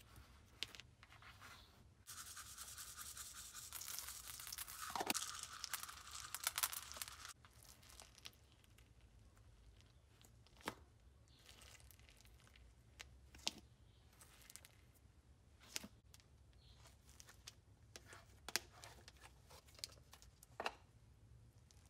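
Hands squishing and stretching slime topped with polymer clay sprinkles: a dense crackling, tearing sound for about five seconds, then quieter handling with scattered short, sharp pops and clicks.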